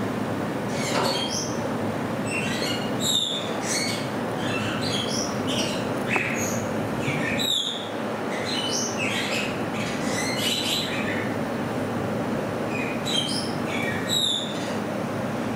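A group of degus squeaking and chirping: short high-pitched calls, many sliding downward, coming in clusters every second or two over a steady background noise.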